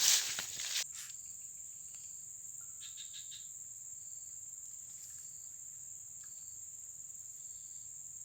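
Steady high-pitched insect chorus, trilling without a break, after a brief rustle in the first second. A few faint short chirps come in about three seconds in.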